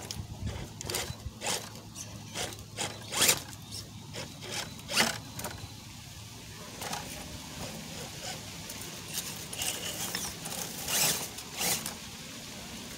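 Redcat Gen7 RC rock crawler grinding over boulders: a run of sharp clicks, knocks and scrapes as its tyres, axles and chassis hit rock, thick in the first half and again shortly before the end, over a low steady hum from the drivetrain.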